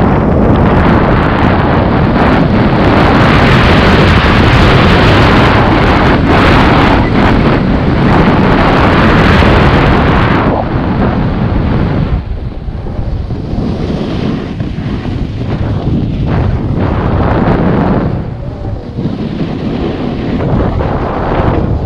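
Wind rushing over a GoPro Hero 7 Black's microphone while snowboarding downhill, mixed with the board scraping over packed, tracked snow. It is loudest for the first ten seconds, then drops to a lower, patchier rush with brief dips.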